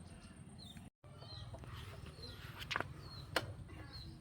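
Small birds chirping, repeated short falling calls, over a steady low hum. The sound cuts out briefly about a second in, and two sharp knocks follow about a second apart in the second half.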